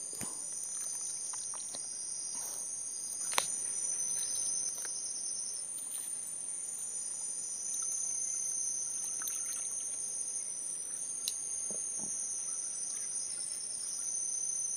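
Steady, high-pitched chorus of forest insects, two shrill tones held without a break. A few sharp clicks and knocks cut through it, the loudest about three and a half seconds in.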